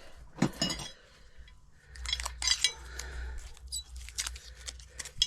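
Steel sockets clinking against each other and on a hard surface as they are handled: a few sharp metallic clinks, each ringing briefly, with low handling noise between them.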